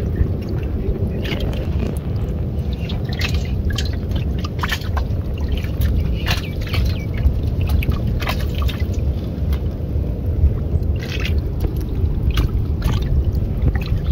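Scattered short water splashes and drips as small fish from a push net are handled, with fish splashing in a shallow steel bowl of water. A steady low rumble runs underneath.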